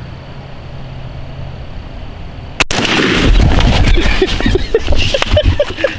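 A single gunshot from a lever-action gun, about two and a half seconds in. It is followed by loud, rough noise with a low rumble and scattered clicks.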